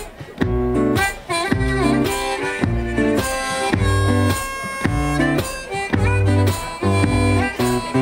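Live acoustic guitar playing a tune over a steady low beat about twice a second, with a harmonica holding long notes above it.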